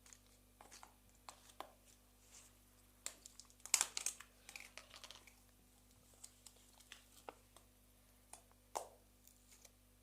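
Slime being squeezed and worked by hand, giving irregular small sticky clicks and crackles that cluster loudest about three to five seconds in.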